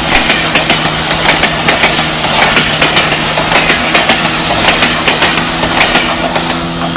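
Train coaches rolling past through floodwater: a loud, steady rush of water spraying up from beneath the train, with a rapid, uneven run of wheel clacks and a steady engine hum underneath.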